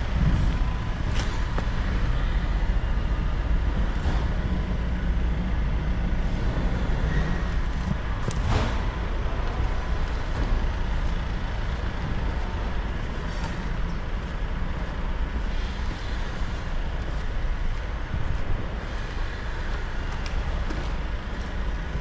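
A steady low mechanical rumble, like an engine or machinery running, with a few short knocks, one about a second in and a louder one near the middle.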